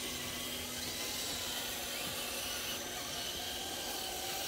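Electric motor and gear drive of an RC crawler truck whining, a high thin whine over a steady hiss, its pitch stepping up and down slightly with the throttle.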